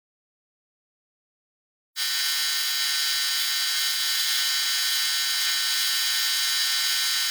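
Silence for about two seconds, then a small high-speed power tool starts whining steadily at a high pitch.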